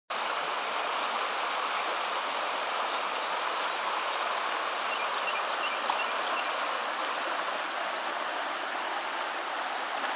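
Shallow creek running over rocks: steady rushing and rippling water, with a few short, high chirps about three seconds and five seconds in.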